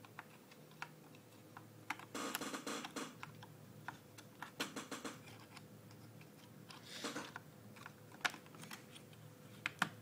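Light clicks and short clattering scrapes of a V-GeN DDR3 laptop RAM stick being handled and pushed into the SO-DIMM slot of a mini PC. The clicks come in small flurries, with a few sharp single clicks near the end.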